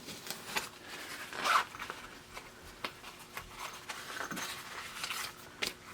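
Faint rustling and small clicks of paper tickets being handled and drawn, with a short breathy noise about one and a half seconds in.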